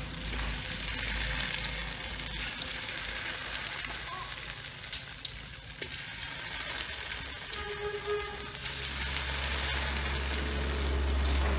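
Food sizzling and crackling steadily in hot oil in a steel wok, stirred with wooden chopsticks. A low rumble joins about nine seconds in.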